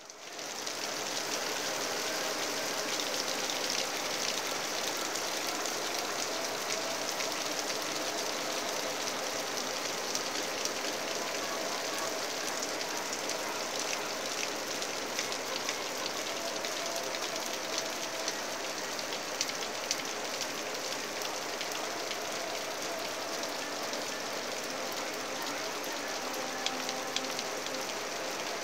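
Steady rain falling on leaves and grass, with a dense patter of separate drops. It fades in over the first second, then holds even.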